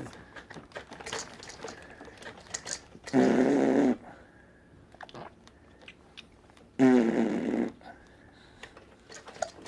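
A baby blowing raspberries: two buzzing lip trills with voice in them, each under a second, about three seconds in and again about seven seconds in, with small clicks from the mouth between them.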